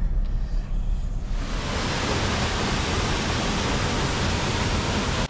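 Steady rushing noise of a small waterfall plunging into a pool, coming in about a second and a half in. Before it, a low rumble inside a parked car.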